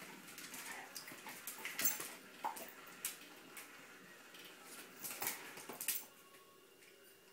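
A dog's claws clicking and scrabbling on ceramic floor tiles as it darts and pounces, in irregular bursts of taps that thin out in the last second or so.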